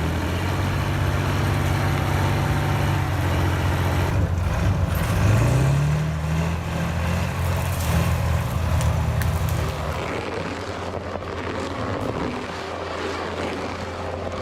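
Heavy diesel machine engines working under load, revving up twice. About ten seconds in, the sound changes abruptly to a quieter, steadier machine drone.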